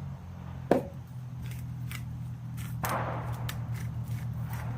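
A cheap hand salt grinder being twisted, giving a run of small crunching clicks, with one sharp knock about a second in. A distant gunshot rings out and echoes away about three seconds in.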